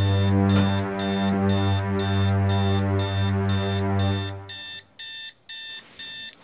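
Electronic alarm clock beeping insistently, about two beeps a second. Low sustained music plays underneath and stops about four seconds in, leaving the beeping on its own.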